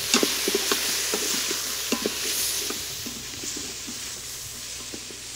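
Onions, garlic and mushrooms sizzling in hot coconut oil in an Instant Pot's metal inner pot while a wooden spoon stirs them, with frequent light knocks and scrapes of the spoon on the pot, busiest in the first two seconds.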